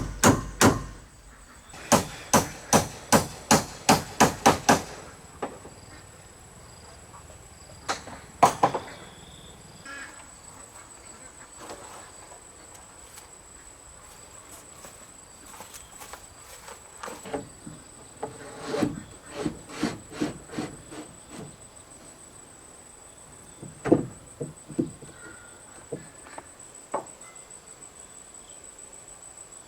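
Hand hammering in quick runs of about three to four strikes a second, with pauses and a few single knocks between the runs. A steady high-pitched insect drone runs underneath.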